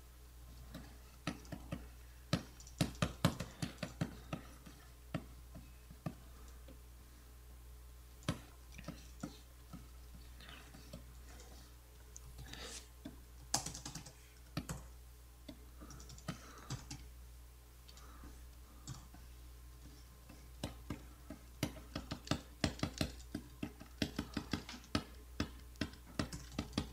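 Computer keyboard keystrokes and clicks, tapped irregularly in quick clusters, with a few brief scratchy sounds around the middle, over a steady low hum.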